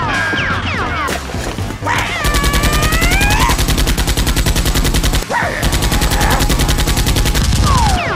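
Rapid automatic gunfire sound effect in two long bursts, the first starting about two seconds in and the second after a brief break, over background music.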